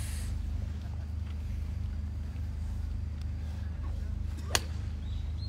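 A golf club striking a ball once on a practice range: a single sharp crack about four and a half seconds in, over a steady low hum.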